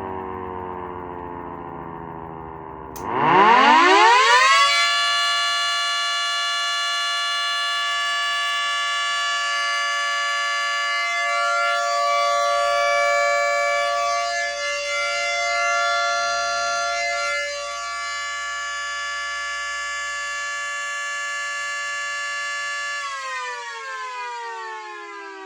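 Miniature 3T22A siren with two rotors: it first winds down, then spins up quickly to full speed about three seconds in and holds a steady, loud alert tone, wavering a little in the middle. Near the end it winds down with the pitch falling. The rotors are freshly balanced.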